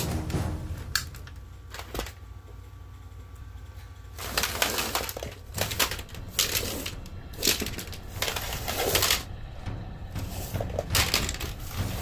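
Plastic Nerf toy blasters being handled and swept across foam floor mats: a few sharp clicks in the first two seconds, then several longer clattering, scraping rushes as the blasters are pushed along and knock together.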